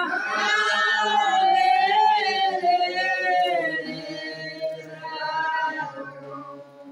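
A congregation of women singing together without instruments, the song growing quieter and trailing off in the last few seconds.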